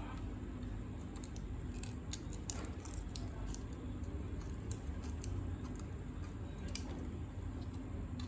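Metal scissors snipping at thin plastic propeller blades, a scattered series of short sharp cuts and clicks, over a steady low hum.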